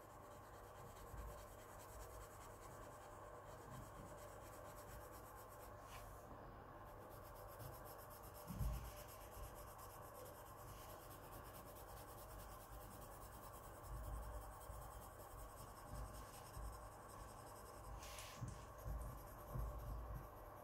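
Faint scratching of a Coloursoft coloured pencil shading lightly on paper, with one soft bump about eight seconds in.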